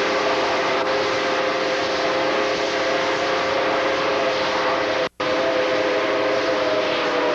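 Steam locomotive whistle blowing one long steady blast over the noise of the moving train. The audio drops out completely for a moment about five seconds in.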